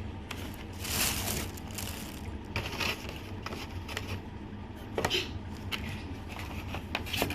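Crunching and crackling from eating birria tacos and handling their takeout container, in irregular bursts every couple of seconds over a steady low hum.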